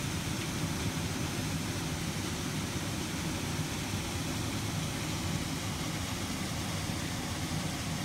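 Steady rushing noise of a nearby waterfall, even and unbroken, heavy in the low range.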